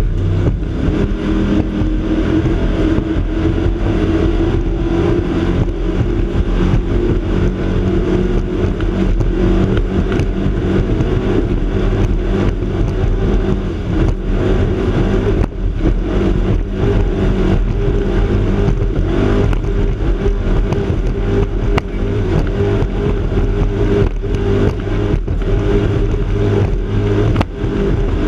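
Offshore powerboat's race engines running hard at high speed in a steady, loud drone. Many short thumps and buffets break through it.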